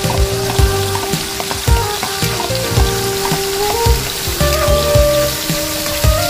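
Chopped tomatoes and onions sizzling in oil in a hot wok as they are stirred with a spatula, under background music with a steady beat.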